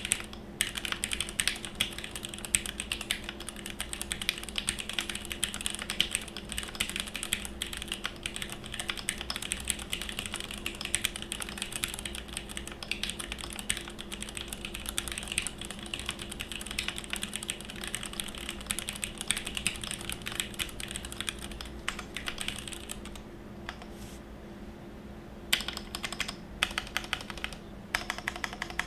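Fast, continuous typing on a custom mechanical keyboard: Gateron X linear switches under doubleshot ABS GMK keycaps, on a 5mm polycarbonate plate in a gasket-mounted Noxary Valhalla case, with lubed Cherry stabilisers. The typing stops for a couple of seconds about four-fifths of the way through, then resumes.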